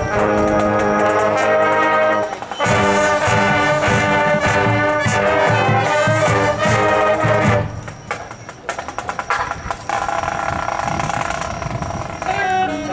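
High school marching band playing, led by its brass section (trombones and trumpets). It opens on loud held chords, then moves into a rhythmic passage with drums. About eight seconds in the brass drops back and a quieter, mostly percussive stretch follows.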